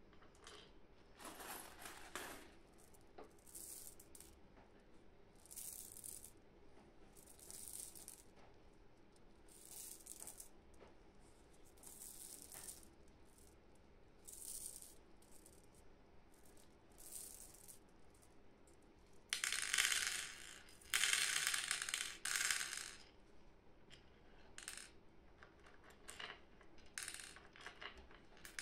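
Small hard candy balls clicking and rattling as they are handled in gloved hands and let fall into a wooden tray. Soft clicks and rustles come about every two seconds, with a louder run of rattling about two-thirds of the way through.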